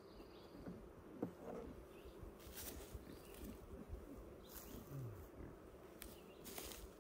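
Honeybees buzzing around an opened nucleus hive box while its frames are lifted out: a faint steady hum with individual bees droning past the microphone, their pitch rising and falling as they pass. A few soft rustles come through as well.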